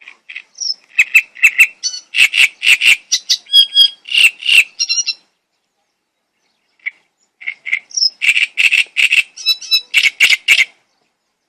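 A songbird singing loudly in two song phrases of rapid, repeated short notes and trills, each a few seconds long, with a short pause between them.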